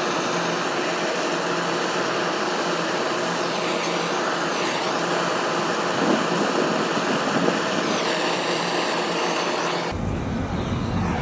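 Steady hiss of a gas brazing torch flame working on a cracked copper AC pipe. Near the end it gives way abruptly to a lower rumble.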